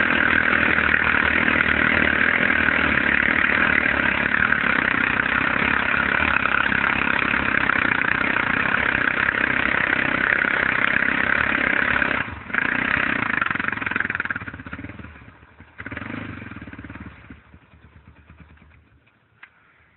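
ATV engine running steadily, with a brief drop about twelve seconds in, then dying away over the last few seconds.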